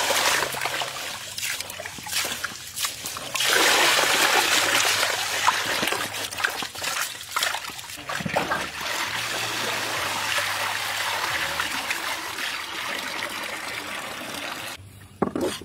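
Water pouring and splashing as rice is rinsed by hand in a woven bamboo basket in a metal basin, then milky rinse water streaming out through the basket's weave as it is lifted. A short knock near the end.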